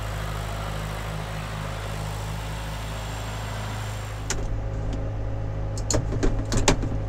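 John Deere loader tractor's diesel engine running steadily at idle. In the second half a few sharp clicks and knocks sound over the engine.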